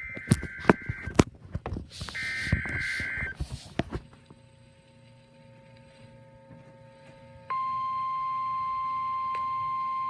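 Emergency Alert System weather alert: two bursts of screechy digital header data tones, mixed with sharp clicks. About 7.5 seconds in, the steady, piercing 1050 Hz weather-radio warning alarm tone starts and holds, signalling that a warning message follows.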